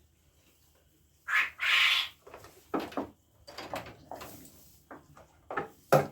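Two short, loud animal cries about a second in, followed by a run of sharp knocks and clatter.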